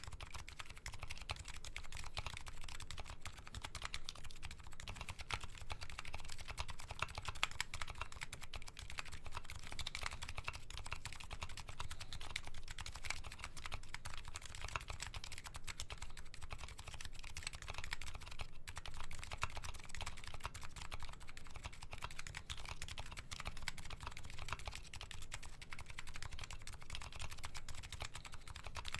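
Continuous fast typing on a Nuxros Kraze custom keyboard with MetaKeebs MetaPulse electro-capacitive switches: a dense, uneven stream of keystroke clicks.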